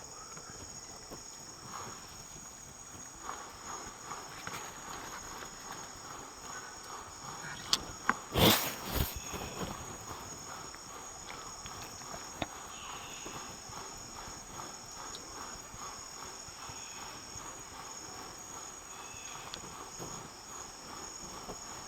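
Rainforest insect chorus: steady, high-pitched buzzing and trilling from cicadas or crickets. A short, loud noise covering all pitches stands out about eight seconds in.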